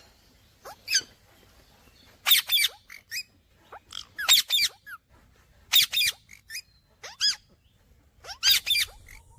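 Indian ringneck parakeet giving short, sharp chirping calls, mostly in quick pairs or triplets, a group every second or two.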